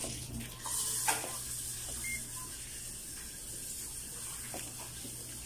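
Quiet steady low hum and hiss, with a few faint knocks about a second in from a handheld digital multimeter and its test leads being handled.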